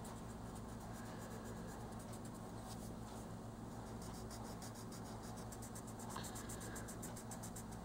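Faint, steady scratching of an oil-based colored pencil on paper as it shades in short back-and-forth strokes.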